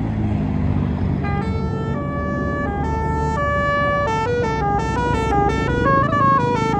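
Tour bus's basuri telolet horn playing a melody of stepped notes over the bus engine's rumble, starting about a second and a half in; the notes come quicker in the middle.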